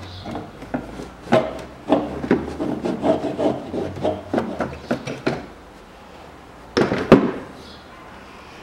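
Plastic air filter housing cover of a 2007 Chevrolet TrailBlazer being worked loose and lifted off: a run of knocks and scraping rubs of hard plastic, then two loud knocks about seven seconds in as the cover is set down.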